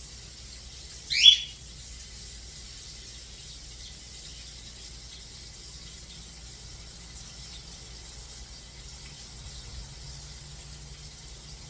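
Chicken nuggets frying in oil with a faint steady sizzle. About a second in comes one loud, short, rising chirp.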